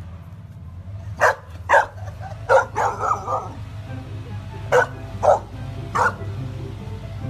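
A dog barking in short single barks, with a quick run of softer barks in the middle, over background music.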